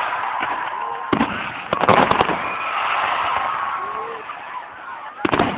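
Fireworks display: shells bursting with sharp bangs about a second in, a crackling cluster around two seconds, and another bang near the end, with crowd voices between.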